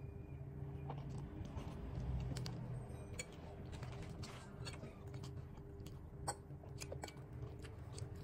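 A person chewing a mouthful of instant noodles, with many small wet mouth clicks.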